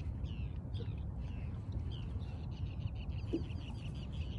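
A bird calling in a rapid series of short notes that each fall in pitch, over a steady low rumble.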